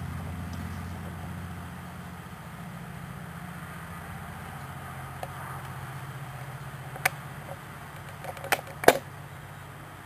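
A low steady hum that shifts in pitch a little partway through, with a few sharp clicks near the end, the last the loudest.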